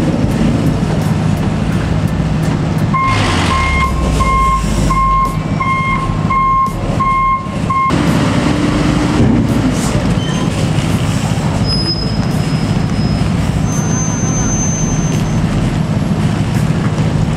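Heavy truck's diesel engine running steadily with a deep hum. From about three seconds in, a reversing alarm beeps evenly about six or seven times over some five seconds, then stops: the truck is in reverse gear.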